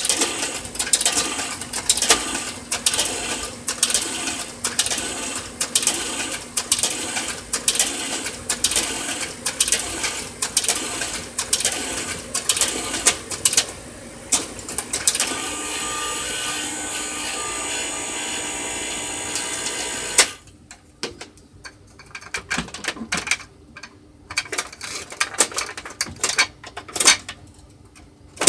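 Kodak 4600 Carousel slide projector running: its mechanism clicks and rattles rapidly for about fifteen seconds, then a steady buzz holds for about five seconds and cuts off suddenly, followed by quieter scattered clicks and one sharp click at the end. The buzz is the fault this working projector is shown for.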